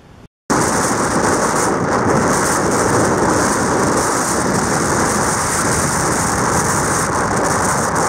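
Typhoon Hagibis's wind buffeting the microphone over heavy storm surf: a loud, dense, steady rush of noise that starts abruptly after a brief silence about half a second in.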